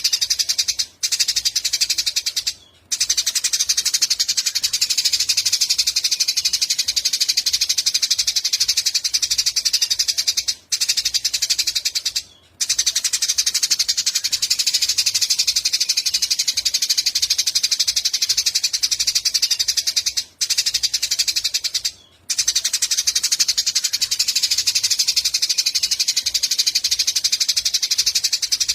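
A small songbird's high-pitched, very rapid continuous trill, used as masteran song for training cage birds. Brief breaks recur in a regular pattern about every ten seconds.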